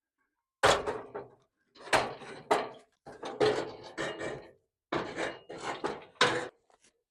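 Builder's scaffolding being rigged: a series of clanks, knocks and rattles from the metal frame being handled and fitted together, some with a brief ring.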